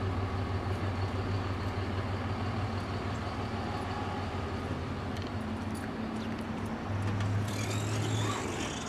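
Motor vehicle engine running with a steady low hum. It swells for about a second near the end, joined by a hiss.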